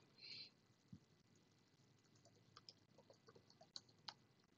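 Faint computer-keyboard typing: scattered soft keystroke clicks, more of them in the second half, with a brief soft hiss just after the start.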